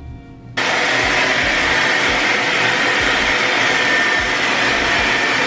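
A hair dryer switched on about half a second in, then blowing steadily with a faint high whine, drying a dog's wet coat after its bath.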